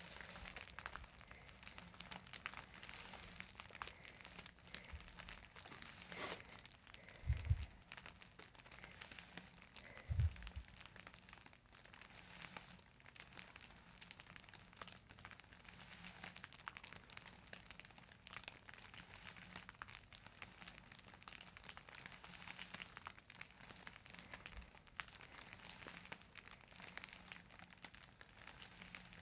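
Faint rustling and crinkling with scattered small clicks, broken by two short low thumps about seven and ten seconds in.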